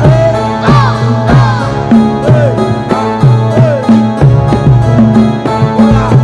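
Live Javanese jaranan dance music: a percussion-led ensemble with quick, regular drum strokes about four a second over sustained low gong-like tones and a bending melodic line.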